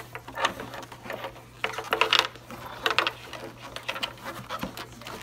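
A leather backgammon case being handled and packed, with leather rubbing and knocking in a few short bursts and a sharp knock near the end.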